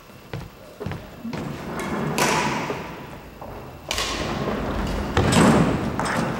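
A few sudden thuds and scuffing noises, three of them louder, about two, four and five seconds in, each trailing off in the echo of a large gymnasium hall with a wooden floor.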